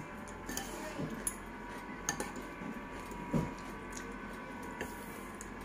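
Fork and spoon clinking and scraping lightly against a ceramic bowl of noodles: a few scattered sharp clinks, over a faint steady hum.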